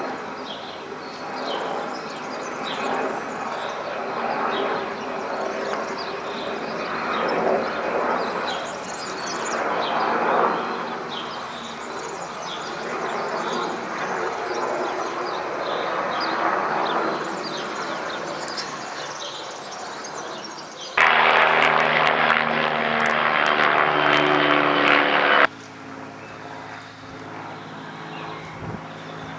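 Aircraft engine noise, a broad rumble swelling and fading as the aircraft passes. About 21 seconds in an abrupt cut brings a much louder, harsher noise that stops just as suddenly some four seconds later, leaving a quieter steady engine hum.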